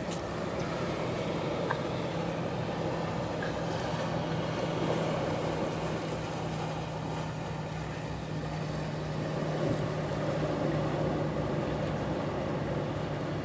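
A steady, engine-like drone with a constant low hum, over a rushing wash of noise.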